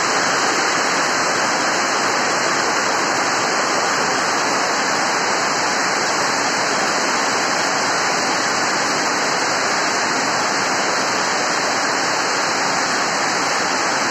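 Heavy rain falling steadily: a dense, unbroken hiss.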